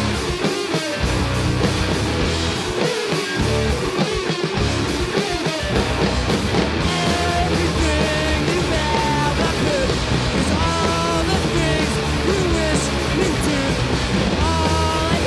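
Rock band playing live: two electric guitars, electric bass and drums. The low end is patchy at first and fills in solidly about six seconds in.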